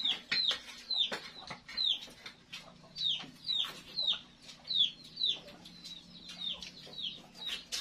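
Chickens calling: a steady run of short, high, peeping notes, each falling in pitch, about two a second.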